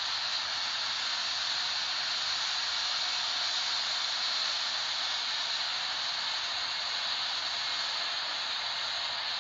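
Boeing 777 airliner's jet noise: a high, even hiss with little rumble that holds steady throughout.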